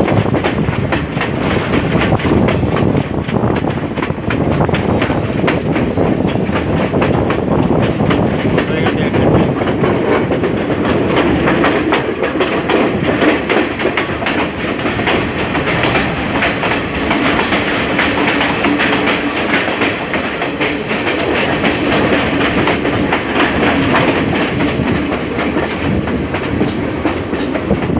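Passenger train running, heard from aboard: a steady loud rumble with the wheels clattering over the rails throughout.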